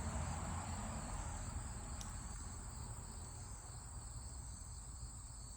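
Crickets trilling steadily in a high, unbroken band, faint, over a low background rumble.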